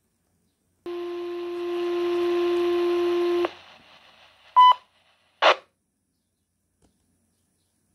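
Baofeng BF-F8HP Pro handheld radio's speaker receiving a fire dispatch channel: a steady dispatch alert tone of about two and a half seconds over radio hiss, cut off sharply. A short higher beep follows, then a brief burst of static.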